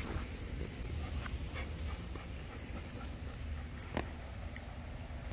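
Faint sounds from a dog on a leash over a steady, high chirring of insects, with a single sharp knock about four seconds in.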